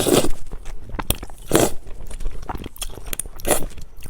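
A person eating close to the microphone: biting and chewing food, with four louder, noisy mouthfuls about a second apart among small clicks.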